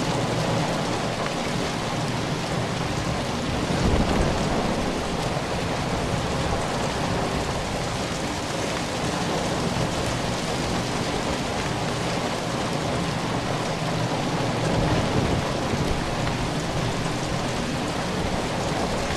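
Steady heavy rain drumming on a metal roof, a dense even patter, with a brief low rumble about four seconds in and a lesser one around fifteen seconds.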